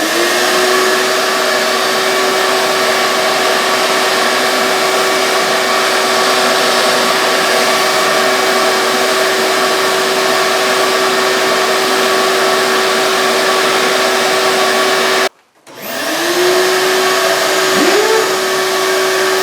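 Vacuum cleaner running steadily, drawing air through the hose and pad of a 3M dustless DA sander while the sander itself is not running. It spins up with a rising whine, cuts out suddenly about fifteen seconds in, and winds up again, with another short rising whine near the end.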